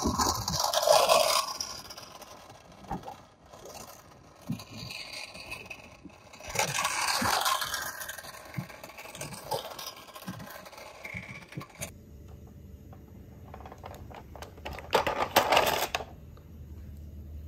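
Scraping and rustling noise, then near the end a burst of hard plastic toy vehicles clattering against one another and a plastic basket.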